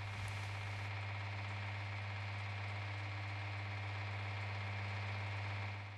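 Steady low hum of a materials-testing laboratory machine running, with a faint hiss above it; it fades out near the end.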